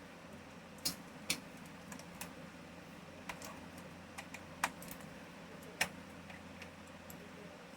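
Keys of a Livetech computer keyboard being pressed one at a time, in irregular clicks with a few louder taps, as when checking which keys work.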